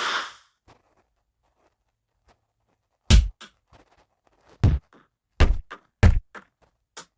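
Punch sound effects played back: the fading tail of a loud hit at the start, then after a quiet gap a run of short, thudding punch impacts at uneven intervals from about three seconds in.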